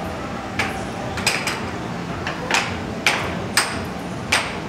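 Puck and mallets on a Dynamo Fire Storm air hockey table during a fast rally: about eight sharp clacks at irregular intervals as the puck is struck and bounces off the rails.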